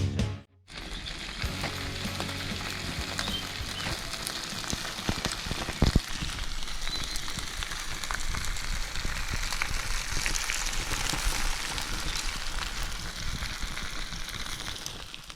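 Food sizzling and frying over a campfire, a steady crackle with scattered small pops and one sharp snap about six seconds in.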